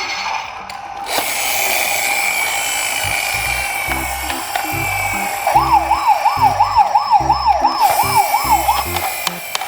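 Electronic siren of a toy emergency vehicle: a steady tone, then from about halfway a fast yelping wail that rises and falls about three times a second before stopping near the end. A low rhythmic beat runs underneath.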